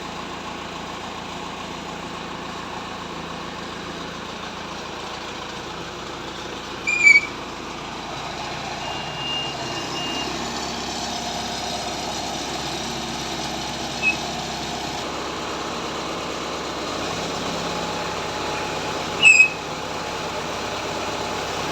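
Heavy machinery running steadily, the engine of a horizontal directional drilling rig. Three short high-pitched sounds stand out over it, about seven, fourteen and nineteen seconds in.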